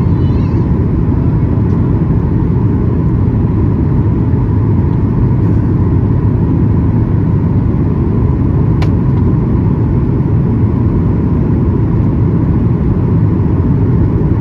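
Steady cabin noise inside a Boeing 737-800 in flight: a constant rumble of the CFM56 engines and airflow, with a faint steady whine over it. A single brief click is heard about nine seconds in.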